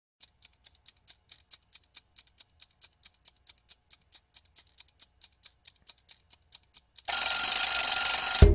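A clock ticking quickly and faintly, about four to five ticks a second, then an alarm clock ringing loudly for about a second and a half and cutting off.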